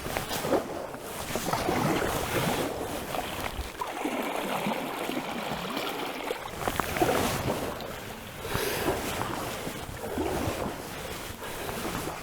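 Kayak paddle strokes in river water, a splash and swish of the blade every second or two, over the steady wash of water.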